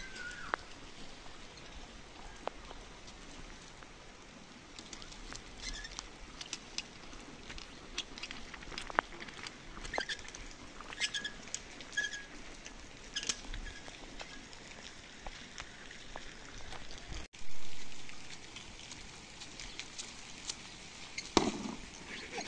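Rain pattering on a flat mud-and-straw roof, with scattered drips ticking and a few short bird chirps in the middle. A single sudden low thump, fading over about a second, comes a little before the end and is the loudest sound.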